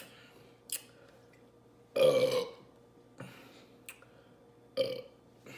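A woman burping: one loud burp of about half a second some two seconds in, and a shorter one near the end, with a few brief mouth clicks between.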